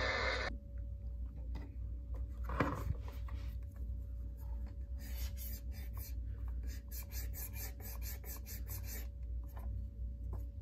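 Cotton swab rubbing and scratching back and forth along the ribbed plastic top of a clock radio, in quick even strokes, most steadily from about halfway through, with one bump a couple of seconds in. The clock radio's own radio sound cuts off half a second in.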